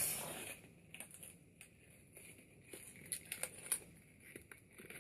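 Fidget spinner packaging being worked open by hand: a tearing hiss right at the start that fades within a second, then scattered small crinkles and clicks.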